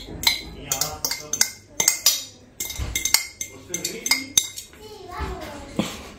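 A utensil clinking and knocking against a mixing bowl in quick, irregular strokes, about three a second, as mashed potato is worked into almond flour and sugar for panellets dough.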